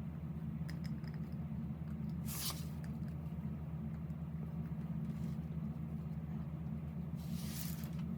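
KTM RC8R's V-twin engine idling steadily, a low, even, rapidly pulsing beat. Two short hisses cut across it, at about two seconds and near the end.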